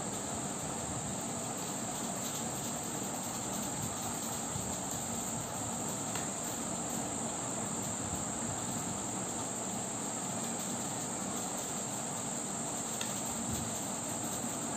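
A steady high-pitched insect-like drone over a constant hiss, with a few faint ticks.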